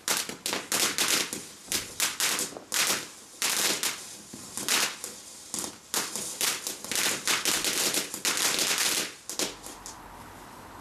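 Garden fountain firework spraying sparks and firing small stars, with rapid irregular crackling and popping that dies away about nine seconds in.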